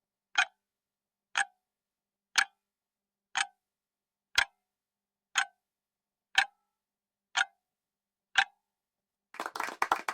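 Clock-tick countdown timer sound effect ticking once a second, nine sharp ticks, marking a 10-second answer countdown. Near the end a burst of clapping sets in.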